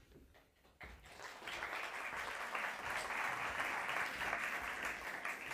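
Audience applauding. The clapping starts about a second in and quickly swells to a steady level.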